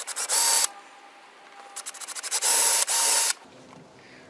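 Ryobi cordless drill boring two 1/8-inch pilot holes in a travel trailer's siding: two bursts, each starting with short stuttering pulses as the trigger is eased in, then running at full speed with a steady whine. The first ends about half a second in; the second, longer, runs through the middle.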